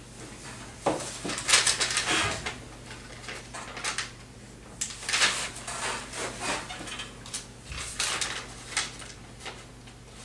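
Irregular rustling, scratching and small clicks and knocks of students working at their desks with paper and pens, over a steady low hum.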